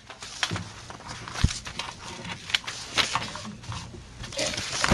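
Paper rustling and scattered small knocks and shuffles as sheets are handled at a lectern, with a faint low hum underneath.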